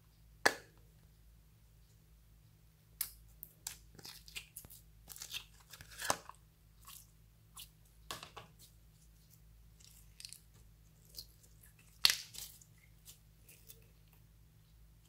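A plastic slime container's lid snapping open with a sharp click, then clear slime being pulled out and squeezed in the hands, giving sticky crackles and small pops, with another sharp pop about twelve seconds in.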